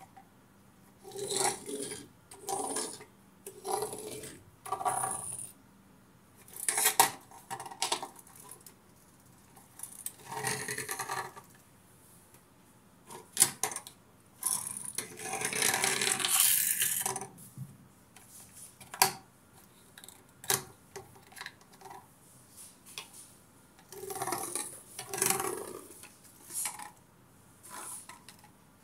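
Small toy warships and a toy tank being handled on a tabletop: a run of light clacks and knocks as they are set down and bumped together, with short scrapes as they slide, and a longer scraping run about halfway through.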